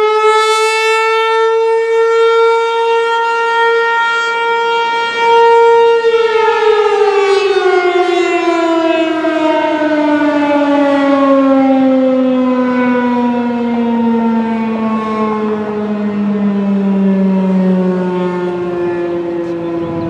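ASC (American Signal Corporation) T-135 AC/DC rotating tornado siren sounding a loud, steady single tone. About six seconds in it starts winding down, and its pitch falls slowly from then on.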